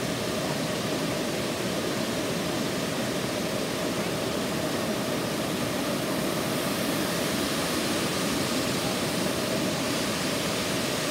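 Amicalola Falls and the rocky cascade below it: a steady, unbroken rush of falling white water.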